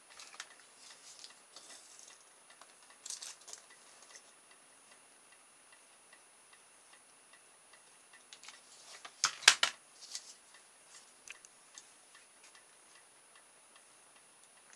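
Small clicks and taps of hands handling a plastic strip, foil and a hot glue gun on a wooden workbench, with a louder quick run of clicks about nine seconds in.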